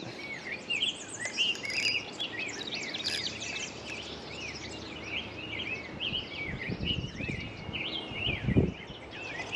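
Several songbirds chirping and singing at once, a dense chorus of short rising and falling calls. Low rumbling bumps on the microphone come about seven and eight and a half seconds in.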